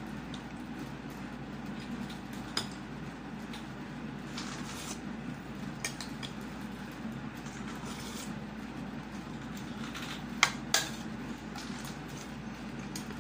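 Plate and utensils clinking during a meal: a few sharp clicks, the loudest two close together about ten seconds in, over a steady low hum.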